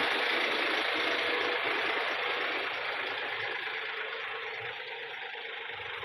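Massey Ferguson 241 tractor's three-cylinder diesel engine running as the tractor drives away with its trailer, the sound fading steadily as it recedes.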